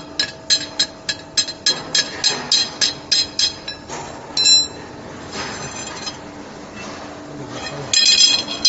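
Rapid metal-on-metal hammer strikes with a ringing tone, about four a second. They stop after one louder clang about four and a half seconds in and start again near the end, over a faint steady machine hum.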